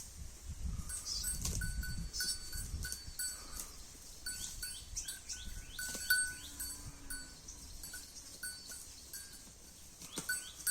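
Holstein Friesian cow grazing, with crunchy tearing and chewing of grass strongest in the first few seconds. Short repeated bell-like tones and brief falling bird-like chirps sound around it.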